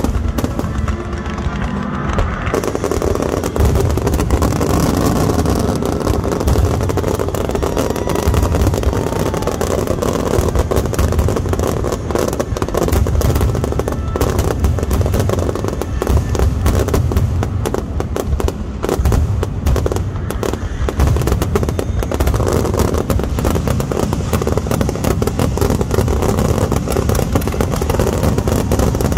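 Fireworks finale barrage: aerial shells bursting in a dense, continuous run of booms and crackle, with no pause between explosions.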